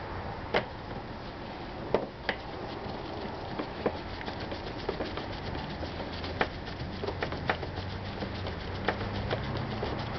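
Phillips screwdriver driving a screw into a scooter's plastic side cover: a string of small clicks and ticks as the screw turns, with a few sharper clicks in the first few seconds and quicker, denser ticking after that.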